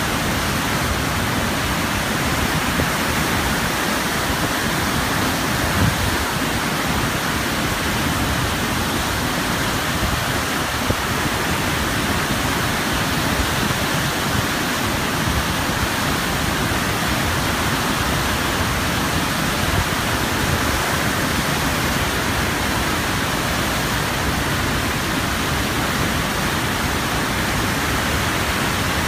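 Waterfall's churning white water rushing steadily and evenly.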